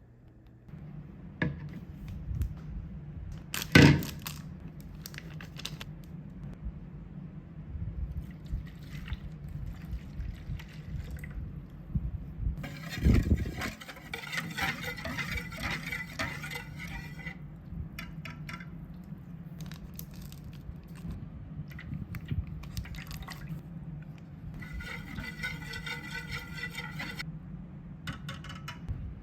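Monjayaki being cooked on a hot plate: liquid is poured and sizzles in two stretches, with sharp clinks and knocks of utensils over a steady low hum. The loudest clink comes about four seconds in.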